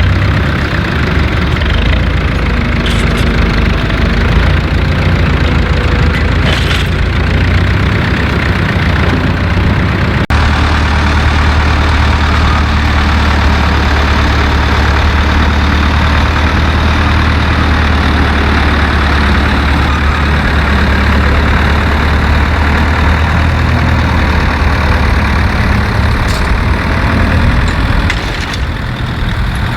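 An engine running steadily at idle, with a deep, even hum. There is a sharp click about ten seconds in.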